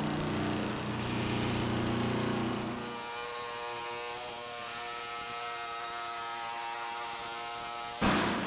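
Pneumatic air chisel buzzing as it cuts through a car's steel rear quarter panel. About three seconds in, the buzz shifts to a higher pitch. Near the end a sudden, louder burst of noise comes in.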